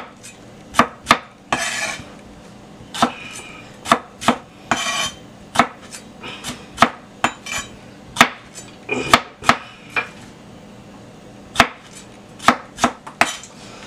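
Chef's knife chopping tomatillos on a plastic cutting board: an irregular string of sharp knocks as the blade strikes the board, with a few short swishes between them.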